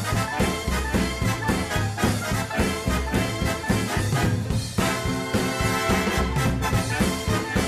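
Swing-style music with brass and a steady beat.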